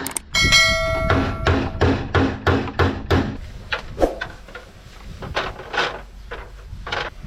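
Hammer striking metal bodywork: a quick run of blows about three a second, the first ones leaving a brief metallic ring. Slower, sparser blows follow in the second half.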